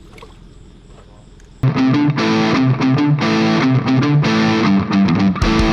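Background rock music: a distorted electric guitar riff cuts in suddenly about a second and a half in, after faint background noise.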